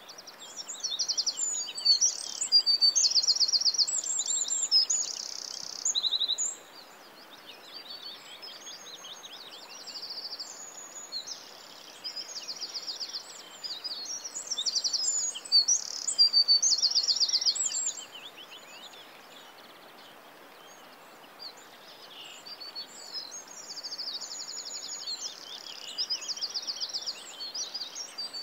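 A chorus of small birds chirping and singing, with fast trills of rapidly repeated high notes over a faint steady hiss. It is busiest in the first few seconds and again a little past halfway, and thins out in between.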